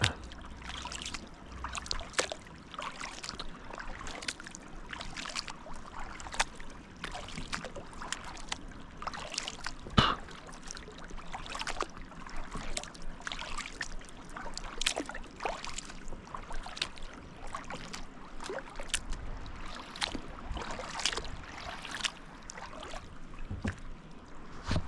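Water splashing and trickling around a kayak on a high-running creek, with many irregular small splashes and drips and a single sharper knock about ten seconds in.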